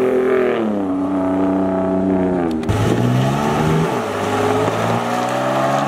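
Vehicles driving past one after another: a pickup truck's engine note falls away as it passes. About two and a half seconds in, a sports coupe's engine takes over, its note rising in steps as it pulls by.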